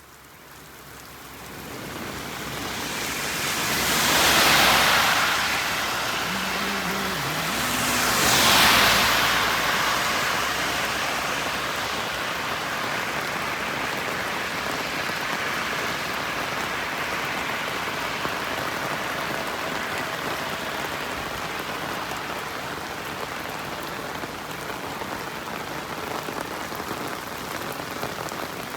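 Heavy rain falling steadily, fading in at the start. Two vehicles pass on the wet road about four and eight seconds in, each a rising and falling rush of tyre spray over the rain.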